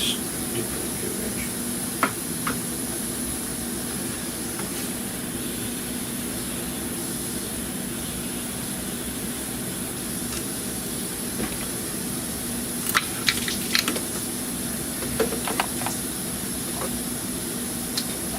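Steady hum and hiss of the workshop background, with a few light clicks and taps from hands and tools working at the coolant hoses and clamps on the engine, mostly in the second half.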